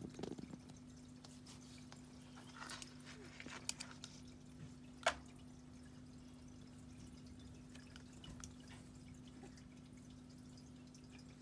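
A kitten batting at a mouse on the floor: a few faint taps and one sharper click about five seconds in, over a steady low hum.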